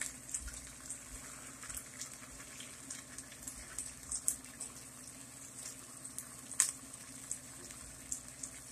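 Faint, scattered crackling from ketchup-based barbecue sauce heating in a pan on the stove, over a low steady hum.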